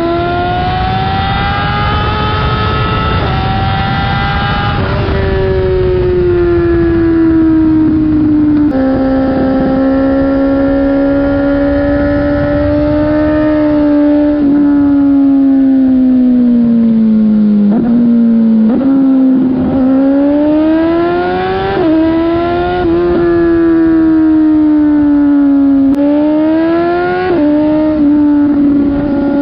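BMW S1000RR superbike's inline-four engine running at high revs, its pitch sagging and climbing with several sudden jumps and drops.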